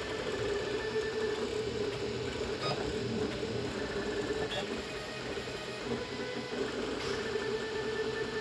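Annex K3 3D printer printing PLA+ at high speed: the stepper motors whine steadily as the toolhead darts about the bed, with higher tones coming and going every few seconds as the moves change.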